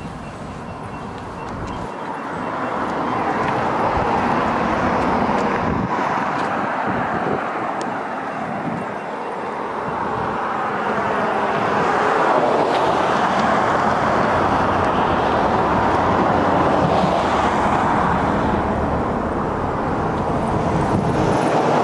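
Road traffic noise from vehicles passing, a steady rushing that swells a few seconds in and again around the middle as cars go by.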